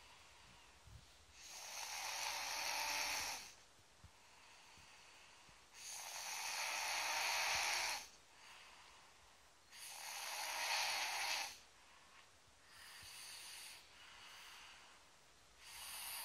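A young girl snoring loudly in her sleep: long rasping snores about every four seconds, the first three strong and the later ones weaker.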